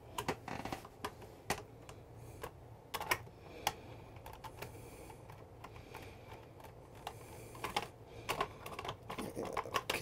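Screwdriver working out the screw of an RV toilet's flush handle: irregular small clicks and taps of the metal tip on the screw and the handle, a few sharper than the rest.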